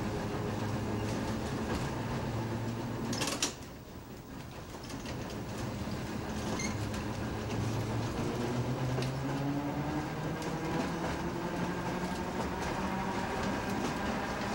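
Philadelphia nearside streetcar 6618 running on rails: a steady rumble of wheels and motors, a brief sharp noise about three seconds in, after which it goes quieter for a moment. It then builds again with the traction motors' whine rising in pitch as the controller is notched up and the car gathers speed.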